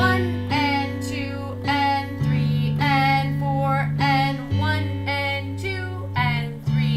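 Electronic keyboard playing a melody of single struck notes, about two a second, over held bass notes that change every couple of seconds.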